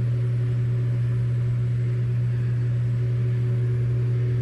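Steady low machine hum from the smoke leak-detection rig running on the intake, unchanging throughout.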